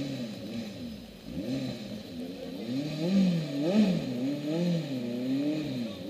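Race car engine revving, its pitch rising and falling again and again as the car works through a hairpin.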